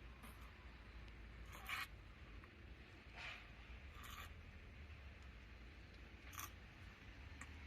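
Near silence broken by about six short, faint scrapes or rustles, spaced irregularly.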